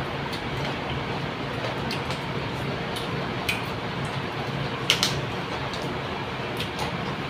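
A few short, crisp snaps and clicks of a fresh green vegetable being peeled and broken apart by hand, the loudest about five seconds in, over a steady background hiss.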